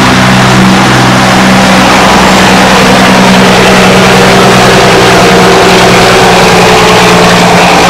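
Heavy diesel truck engine running loud and steady, with a continuous rush of road and tyre noise over it.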